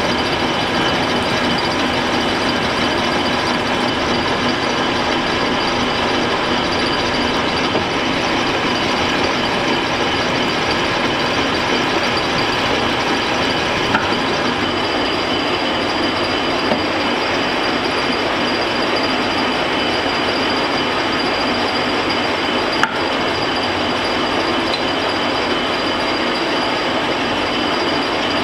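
Metal lathe running under power, single-point cutting a 3/8-24 thread: a steady mechanical running noise from the spindle and gear train, with faint steady tones through it. Three short sharp ticks come partway through.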